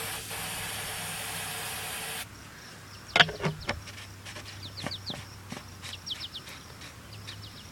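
An aerosol can spraying a steady hiss for about two seconds, then cutting off sharply: fuel being sprayed into the potato cannon's combustion chamber. This is followed by a couple of sharp knocks about three seconds in, while birds chirp faintly.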